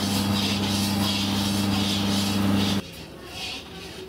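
Steady mechanical hum of a motor or engine, with a hiss above it that swells about twice a second. It cuts off abruptly about three seconds in, leaving a much quieter background.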